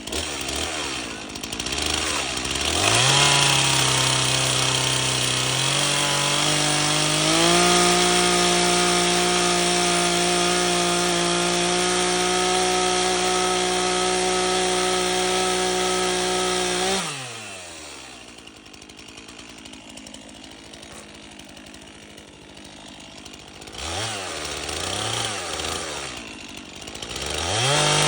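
Gasoline chainsaw revved up and held at high speed for about fourteen seconds, stepping up in pitch partway through. It then drops back to a low idle and is briefly revved twice near the end.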